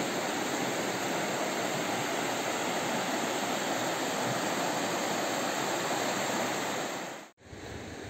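Kupa River water rushing over a shallow, rocky riffle: a loud, steady rush. It cuts off abruptly about seven seconds in, giving way to a fainter, steady rush.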